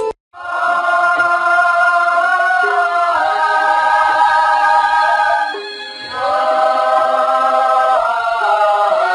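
A choir singing a slow melody in long held notes, in two phrases with a brief dip about six seconds in.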